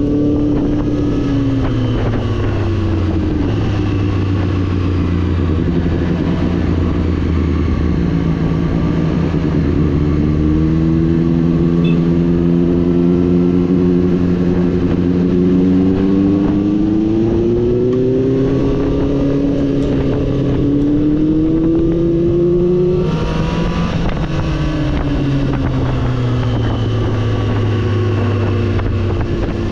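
Triumph Street Triple 765 RS's inline three-cylinder engine pulling a ridden motorcycle, its revs climbing and falling in long, slow sweeps. About two-thirds of the way through, the revs drop sharply, then rise again near the end.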